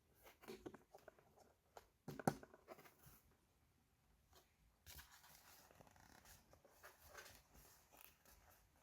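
Quiet handling of toy pieces and their packaging: small plastic clicks and taps, a sharper knock about two seconds in, then soft rustling and crinkling of packaging from about five seconds.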